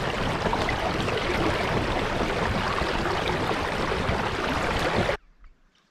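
Wind rushing over the microphone: a loud, steady rush that cuts off abruptly near the end.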